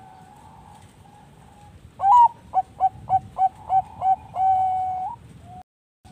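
Zebra dove (perkutut bangkok) singing: a loud opening coo, then a run of about seven short clipped notes, roughly three a second, then one long held note that flicks upward at its end. Fainter coos of other doves come before it, and the sound cuts off suddenly near the end.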